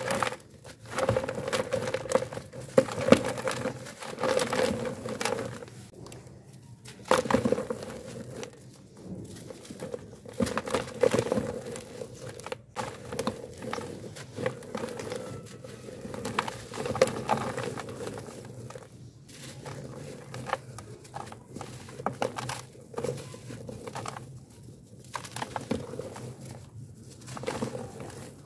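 Dry, gritty charcoal chunk crumbled and crushed between bare hands, with dust and grit pattering into a plastic tub. The crunches and crackles come in irregular bursts of a second or two.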